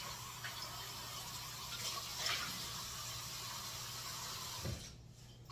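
Kitchen tap running as metal meat grinder parts are rinsed under it, with a couple of knocks about two seconds in; the water is shut off near the end.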